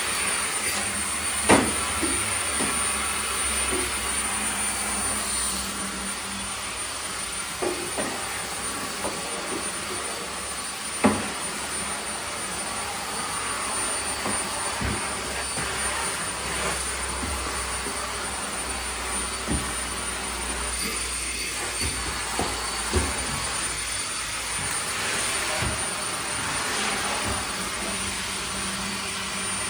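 A household motor running steadily with a whooshing airflow and a faint high whine, with scattered knocks and clinks over it, the sharpest about 1.5 s and 11 s in.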